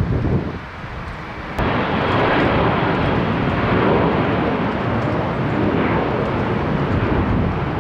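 Low wind rumble on the microphone, then about one and a half seconds in a loud, steady jet aircraft engine rush starts abruptly and runs on evenly.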